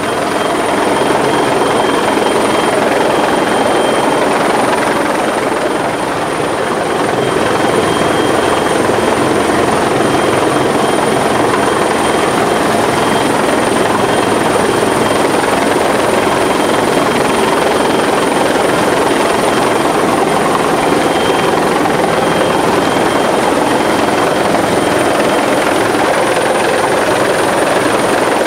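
Helicopter hovering low overhead: a loud, steady rush of rotor and downwash noise with a thin, steady high-pitched turbine whine on top.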